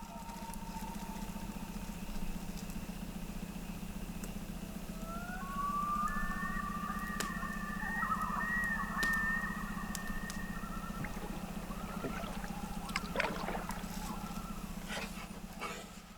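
A vehicle engine running steadily at a low, even hum, with higher sliding tones over it for several seconds in the middle.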